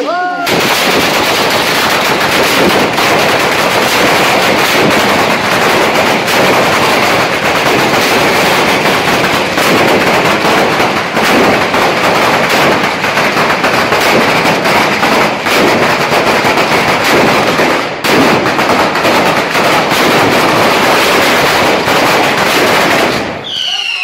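A long street chain of firecrackers (an Italian 'batteria') exploding in a rapid, continuous crackle of sharp reports, like sustained machine-gun fire. Near the end the crackle breaks off and whistling fireworks shriek in several falling tones.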